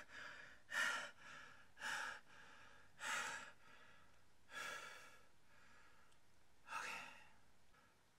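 A man breathing heavily, with about five audible breaths or sighs spaced a second or so apart.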